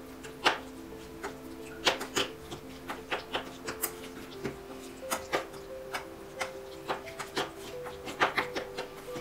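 Wooden spoon clacking and scraping against a stainless steel bowl as a corn and mayonnaise mixture is stirred: irregular sharp knocks, a few a second. Soft background music plays underneath.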